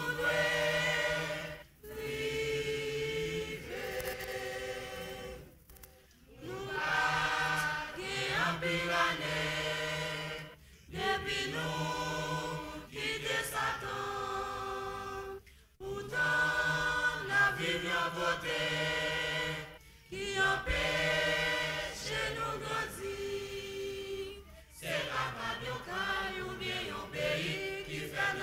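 Choir singing without instruments, in phrases of about four to five seconds with short breaks between them.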